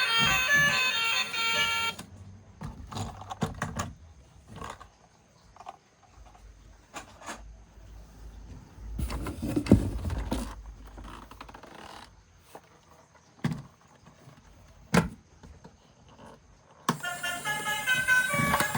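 Cheerful background music, then a quieter stretch of clicks, knocks and light rattles from toy vehicles being handled, with a low rumble in the middle; the music comes back near the end.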